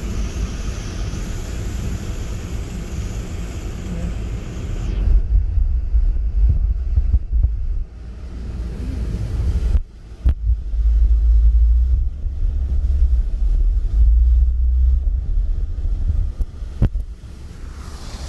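Wind buffeting the microphone of a vehicle driving through floodwater, over the vehicle's low rumble. A hiss of tyres through water is heard for the first five seconds, then stops, and there are a few sharp knocks later on.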